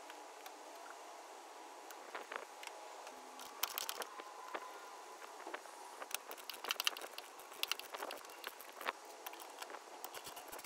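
Faint, scattered clicks and scrapes of hand tools at work, hose-clamp pliers and then a socket ratchet, the clicks coming in short clusters.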